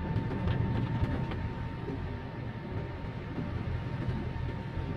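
Cabin noise of a Daihatsu car with a manual gearbox cruising in 4th gear on a wet road: steady engine and tyre rumble, with a faint steady whine. A few light ticks come in the first second or so.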